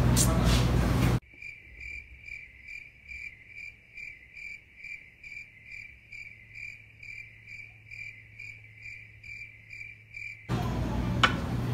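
Cricket-chirp sound effect, the stock 'crickets' gag for an awkward silence: a steady, even chirping of about three chirps a second that cuts in abruptly after a second of loud chatter and cuts out just as suddenly near the end, when the room noise returns.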